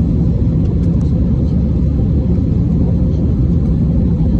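Steady low rumble of a jet airliner's engines and rushing air, heard inside the passenger cabin in flight. The aircraft is an Airbus A320-family jet.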